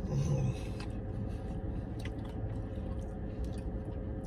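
A man biting into and chewing a mouthful of flatbread sandwich inside a car cabin, with a short louder sound as he bites near the start, over a steady low hum.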